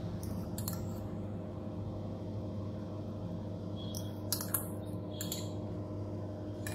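Glass bowl and steel spoon clicking and scraping against a glass baking dish as a sautéed vegetable mix is tipped out and spread, a few short clicks mostly around four to five seconds in, over a steady low hum.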